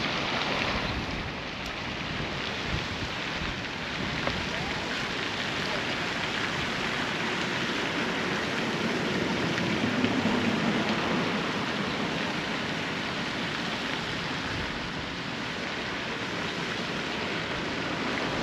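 Steady hiss of water, an even noise that holds throughout.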